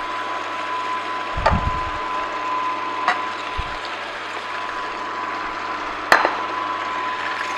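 Angel stainless-steel twin-gear juicer running with a steady hum as carrot pulp is pressed into its feed chute with a plunger. A few sharp knocks, the loudest about six seconds in.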